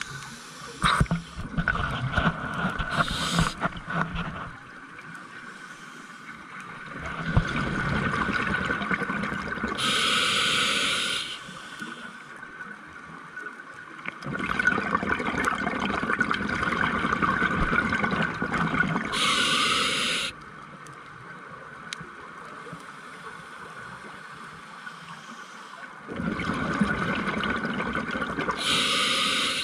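Scuba diver breathing through a regulator underwater: several seconds of bubbling exhalation, then a short hiss of inhalation through the regulator, repeating about every nine seconds, three breaths in all.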